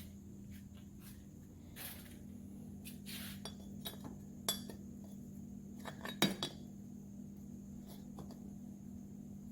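Scattered metal clinks and knocks, a few seconds apart, as a bent piece of steel channel iron is handled, over a steady low hum.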